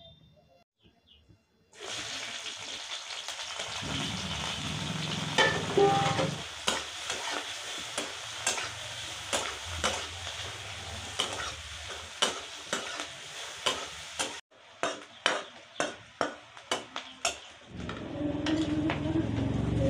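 Sliced onions and green chillies sizzling in a steel kadai on a gas stove, starting about two seconds in, with a steel spatula scraping and tapping against the pan many times. Near the end boiled taro (arbi) pieces are tipped into the pan from a steel plate.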